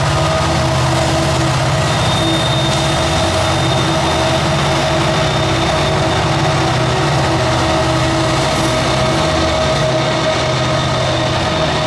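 Norfolk Southern diesel locomotives passing close by, engines working under load as the westbound train climbs the grade. A thin, steady high squeal, typical of wheel flanges on the curve, starts about two seconds in.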